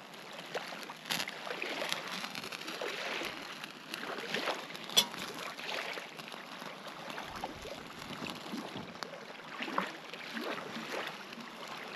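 Small campfire crackling, with scattered light ticks and one sharper pop about five seconds in.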